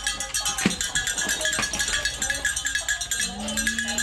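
Cowbells ringing in a rapid, continuous jangle. A steady low pitched tone starts near the end.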